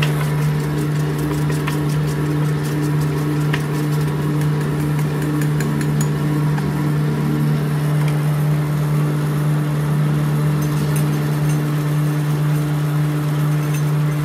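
A steady machine drone with a low hum, and a few light clicks and knocks now and then.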